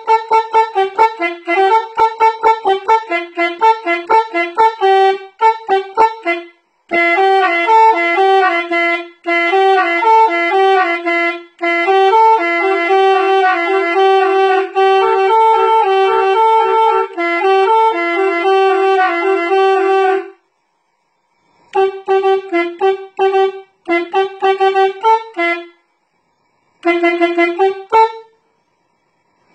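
Music: a single wind-instrument melody of short notes in a narrow range, stopping briefly four times, the longest pause of about a second and a half coming about two-thirds of the way through.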